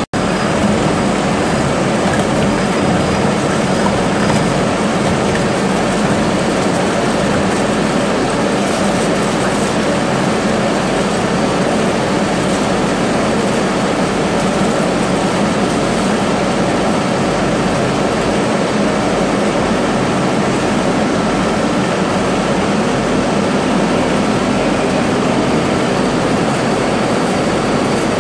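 Large lathe turning a heavy steel workpiece while a trepanning tool on a long boring bar cuts a deep bore: a loud, steady mechanical running and cutting noise with a low hum underneath.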